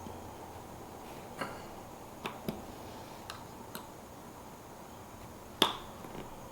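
Scattered light clicks and taps of small metal hardware and hand tools being handled during a motorcycle seat fitting, with one sharper click about five and a half seconds in.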